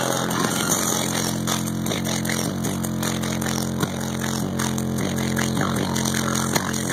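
Deep bass notes of a hip-hop track played very loud through a sound system, changing pitch every half second or so and heavily distorted on the recording.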